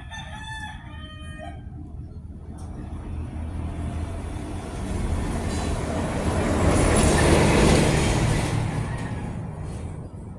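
A vehicle passing by: a noisy rush that builds over several seconds, loudest about seven to eight seconds in, then fades away.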